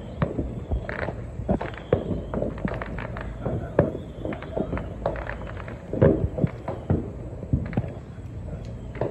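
Fireworks popping and cracking irregularly, many small reports with a few louder bangs among them.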